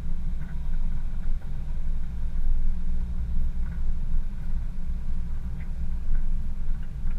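4x4 driving slowly along a dirt track: a low, steady engine and tyre rumble, with a few faint light clicks.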